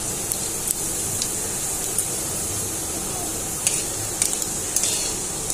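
Whole cumin seeds sizzling steadily in hot oil in a kadai, with scattered crackles: the tempering (phoron) as the seeds fry and darken. A few sharper clicks about four seconds in are a spatula stirring the seeds against the pan.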